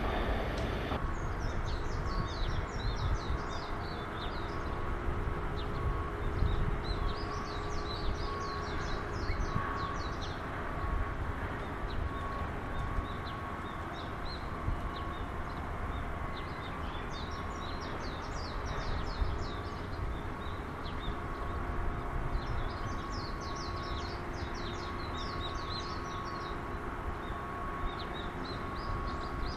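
Small birds chirping in repeated bursts of quick notes, a few seconds apart, over a steady low background rumble with a faint constant hum.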